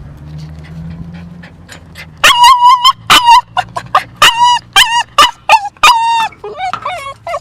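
Dachshund squealing: a rapid run of loud, high-pitched yelping whines starting about two seconds in, tailing off into quieter, lower whines near the end. It is a dog whining because it misses an absent carer.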